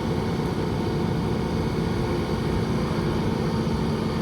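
An engine running steadily at a constant speed, an even hum with no change in pitch.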